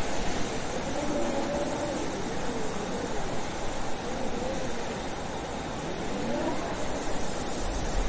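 Blizzard wind blowing steadily, a constant rush with a faint howl that wavers up and down in pitch.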